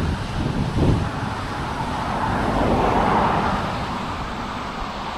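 Rushing water of a waterfall mixed with wind buffeting the microphone, a heavy low rumble at first, then the noise swelling about three seconds in and easing off.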